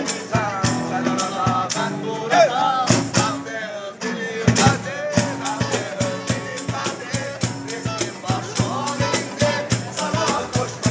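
Live acoustic street music: two acoustic guitars strummed over a steady cajón beat, with a voice singing the melody.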